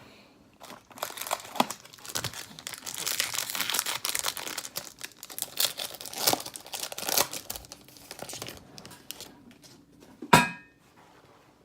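Plastic wrapper of a hockey card pack being torn open and crinkled. Near the end there is one short, sharp clack.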